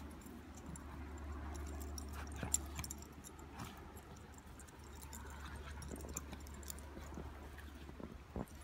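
A Groenendael and a golden retriever play-fighting in snow: irregular scuffling and snow crunching, with scattered sharp clicks, the loudest about two and a half seconds in, over a steady low hum.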